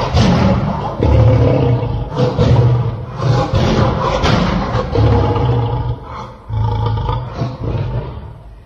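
Lion roaring: a run of deep roars, about one a second, growing fainter toward the end.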